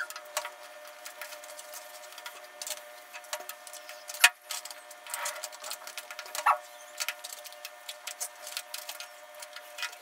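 Metal forks tapping and scraping against aluminium foil trays while eating: a run of irregular clicks, the sharpest about four seconds in, over a faint steady hum.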